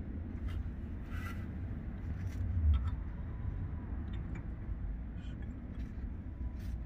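A few faint light clicks and taps of a steel camshaft retainer plate being handled and set against a Ford 5.0 engine block, over a steady low outdoor rumble that swells briefly about two and a half seconds in.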